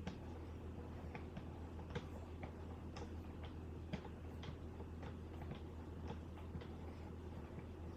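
Wicked Edge guided sharpener's leather strops worked in slow upward strokes along a knife edge: light clicks and taps about twice a second, uneven in strength, over a steady low hum.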